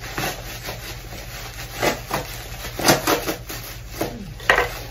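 Bubble wrap crinkling and rustling as it is pulled apart by hand to unwrap a gift, in a handful of short crackles, the loudest about three seconds in and near the end.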